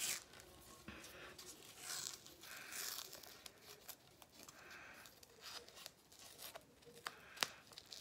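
Hockey tape being pulled off the roll and wrapped around the knob of a stick: faint rasps of tape peeling and crinkling, with a few sharp ticks near the end.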